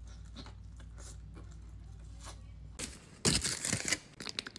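Quiet wet mouth clicks of eating at first, then about three seconds in a loud burst of aluminium foil crinkling around a foil-wrapped burrito, lasting under a second.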